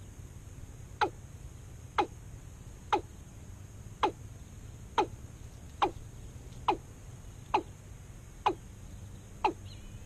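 Watercock calls: short falling notes repeated at an even pace, about one a second, the call used to lure the bird to the trap. A brief higher, wavering call comes in just before the end.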